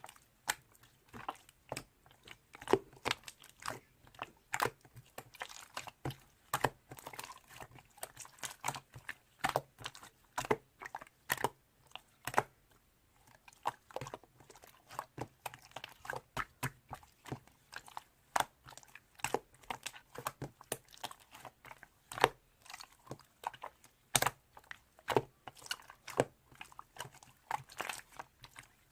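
Slime being squeezed, pressed and stretched by hand, making irregular sticky clicks and pops, several a second.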